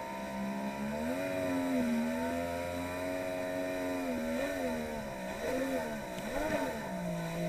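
Polaris SL 900 personal watercraft's two-stroke engine running at speed. Its pitch rises about a second in, wavers up and down several times over the last few seconds, and drops near the end.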